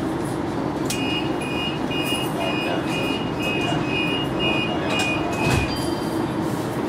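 Tram door-warning beeps: a high-pitched beep repeating about twice a second for some five seconds, starting about a second in, over the steady hum of the standing tram.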